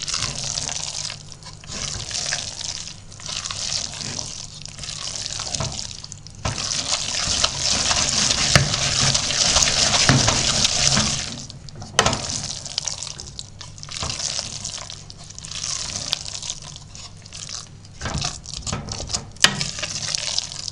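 Wooden spoon stirring a wet mass of cheese curds and milk in a stainless steel pot: repeated wet squelching and scraping strokes, with a longer, louder stretch of fast stirring in the middle. The curds are being heated and worked into a paste for cheese.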